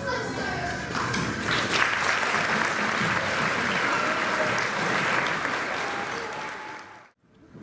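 Audience applauding at the end of a song, the clapping dying away near the end.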